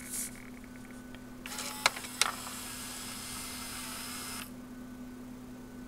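Slot-loading DVD drive built into a GPX TDE1380 TV ejecting a disc: the loading motor and gears whir for about three seconds, with two sharp clicks near the start, then stop as the disc is pushed out of the slot. The drive is misbehaving, falsely sensing a disc and trying to load one.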